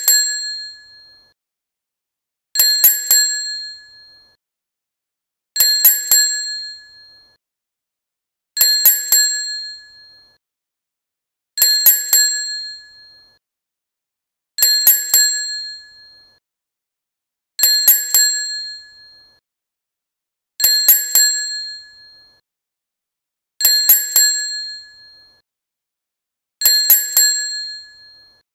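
Boxing ring bell struck three times in quick succession, 'ding ding ding', the group repeating about every three seconds. Each group gives a high, bright ring that dies away over about a second and a half.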